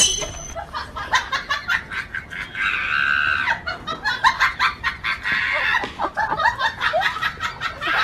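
Hens clucking and squawking in quick, repeated bursts.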